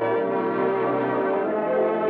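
Instrumental music of sustained, held chords, shifting partway through; the closing music of a 1950s radio program.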